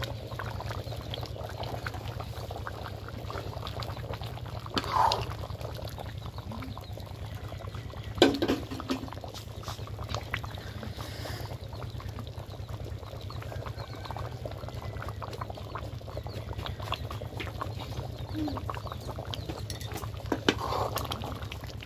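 Fish curry bubbling at a rolling boil in a large open metal pan, a steady bubbling with fine popping, and a sharp knock about eight seconds in.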